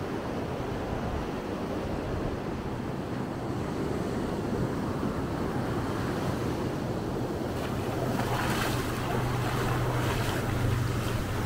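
Atlantic Ocean surf washing steadily onto the beach, with wind buffeting the microphone. About two-thirds of the way in, a low steady hum joins it.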